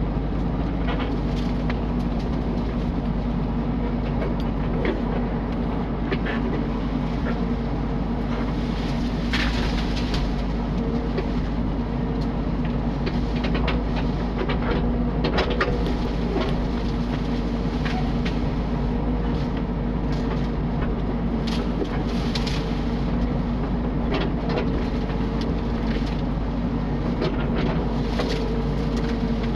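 Mini excavator's diesel engine running steadily under work, with scattered short knocks and cracks throughout.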